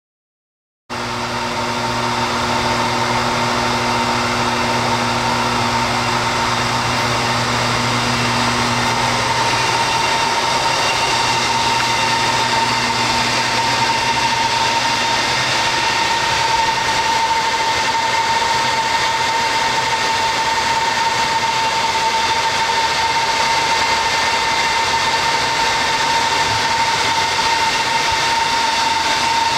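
Top Tier floor-level palletizing system running: a steady industrial machine noise with a constant high whine, starting abruptly about a second in. A lower hum underneath fades out partway through.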